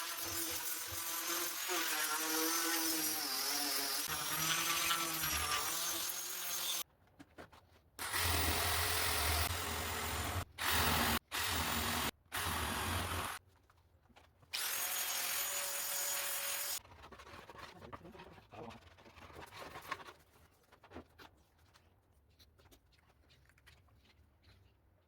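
Handheld electric power tool working wood. Its motor runs for several seconds with the pitch wavering under load, then stops and starts in a few short bursts and one last free-running whine. After that come only faint clicks and handling noises.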